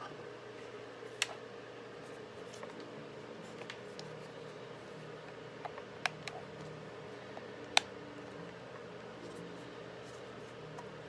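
A few isolated sharp clicks and taps from small hard objects being handled, the loudest about eight seconds in, over a steady low hum.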